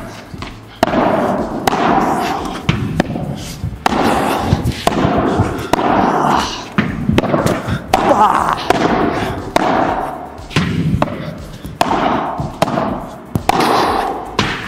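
Padel rally: the ball struck back and forth with padel rackets in a steady exchange of volleys, about one hit a second, each hit echoing briefly.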